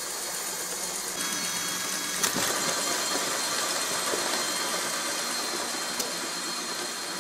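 A large Meccano crawler tractor's electric motor and gearing whirring as it drives on its tracks across a wooden floor. The sound steps up about a second in, has a sharp click a little after two seconds and another near the end, and grows gradually fainter as the model moves away.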